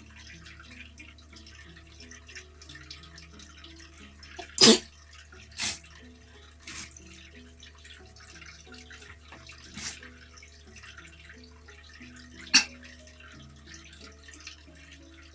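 A person sneezing, set off by tickling the nose with a twisted tissue. There is a loud sneeze about four and a half seconds in and another sharp, loud one near the end, with three smaller sneezes or snorts between them, over quiet background music.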